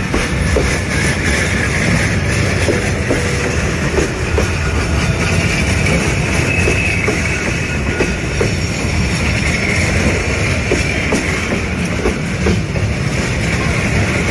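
Freight wagons rolling past at close range: a steady rumble of steel wheels on rail, with scattered clicks as wheels pass over rail joints and a thin high squeal coming and going from the wheels on the curve.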